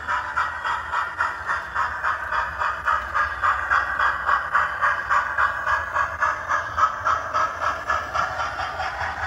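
OO gauge model of the LNER A4 steam locomotive 4468 Mallard running, with steady, rhythmic steam chuffing at about three beats a second from its sound unit.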